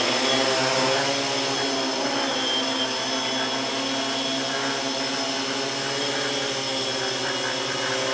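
DJI Phantom quadcopter's propellers and brushless motors whirring steadily in flight: a many-toned buzzing hum.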